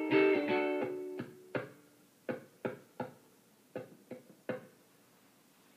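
Guitar ending a song: chords ring for about a second and a half, then about seven single plucked notes follow one by one, each dying away, until the playing stops.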